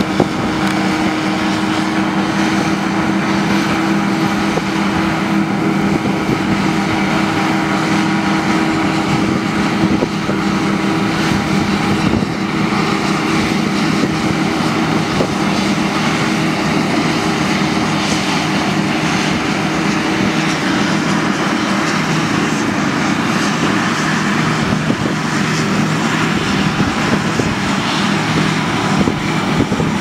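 John Deere combine harvester running while cutting wheat: a steady engine and machinery hum with several held tones under a constant rushing noise from the threshing.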